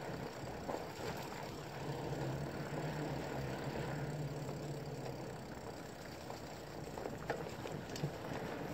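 Mountain bike rolling fast down a dirt single-track trail: tyre noise on the dirt and the rattle of the bike over bumps, with a low steady hum for a few seconds in the middle and a couple of sharp knocks near the end.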